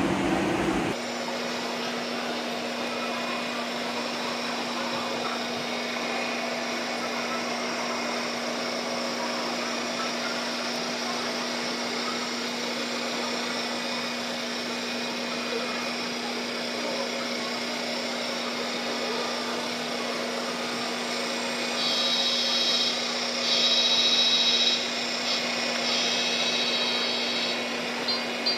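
Steady whirring hum of a small electric motor with a constant low tone. Near the end it is joined by three short, high-pitched horn-like tones, each about a second long.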